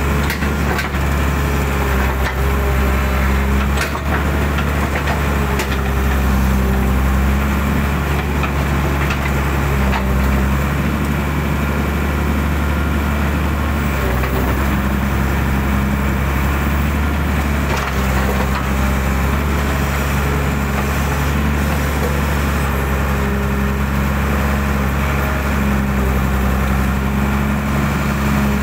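Hydraulic excavator's diesel engine running steadily under working load while it digs out a drainage ditch, with scattered cracks and knocks from the bucket working through the ditch.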